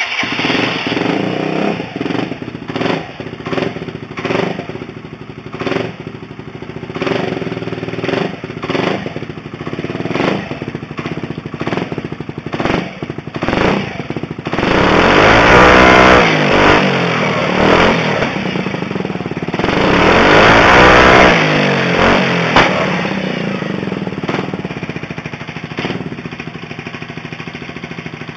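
Gilera Nexus 125 scooter's single-cylinder four-stroke engine running through a GPR titanium aftermarket exhaust. It idles with a series of short throttle blips, then revs up and back down in two longer pulls around the middle, before settling to a steady idle.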